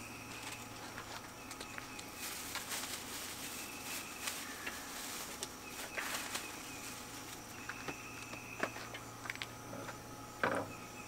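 Insects chirping steadily outdoors over a low hum, with scattered small clicks and one louder knock near the end.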